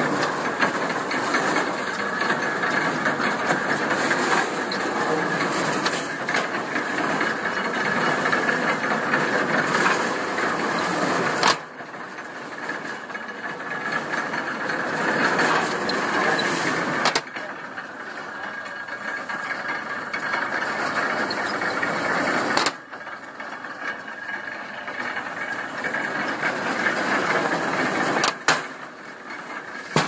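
Vintage stationary hay baler running as hay is fed into its chamber: a steady mechanical clatter. About every five to six seconds a sharp knock comes, the sound drops suddenly, then it builds up again.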